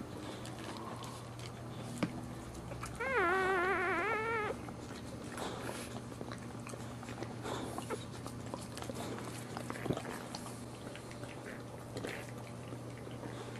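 Newborn boxer puppy crying: one loud, wavering, high cry about three seconds in, lasting about a second and a half. A steady low hum runs underneath, with faint small squeaks and clicks.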